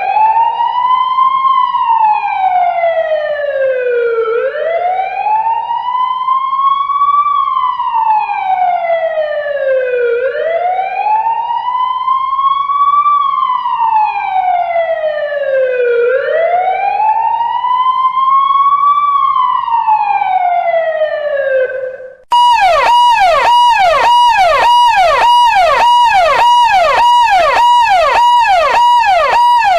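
Electronic emergency-vehicle siren on a slow wail: the pitch rises for about two seconds and falls for about four, four times over. About twenty-two seconds in, it cuts to a fast yelp of quick, rapidly repeating pitch sweeps.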